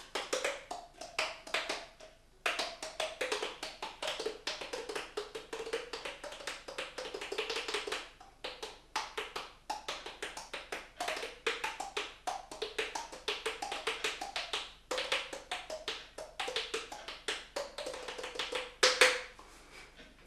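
Rapid hollow taps of fingers drumming on a cheek over an open mouth, the pitch stepping up and down like a tune as the mouth changes shape, with short pauses and one louder hit near the end.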